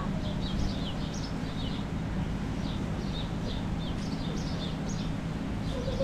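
Outdoor urban waterfront ambience: a steady low background rumble, with small birds chirping in short, high, quick notes over and over.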